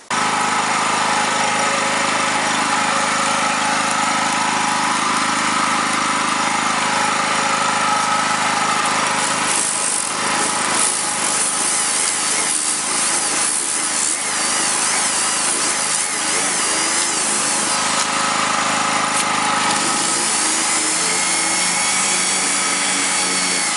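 Electric random orbit sander switching on abruptly and running steadily, its sanding disc scrubbing over a car's painted body panel.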